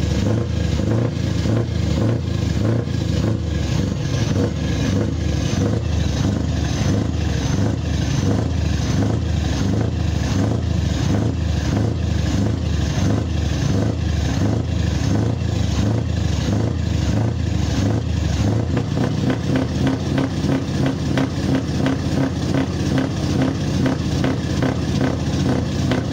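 Scania V8 diesel truck engine running steadily at standstill, heard at its side-exit exhaust pipe with an even pulsing beat. About eighteen seconds in the deepest part of the sound drops away and the pulsing becomes crisper.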